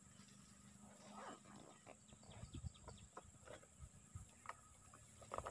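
Near silence: faint outdoor ambience with a steady high hiss and a low hum, broken by scattered soft clicks and a few brief chirps.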